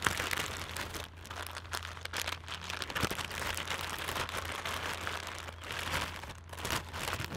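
Plastic bags crinkling and rustling as packs of soft-plastic tube baits are pushed into a zipper storage bag and its seal is pinched shut, with many small crackles throughout.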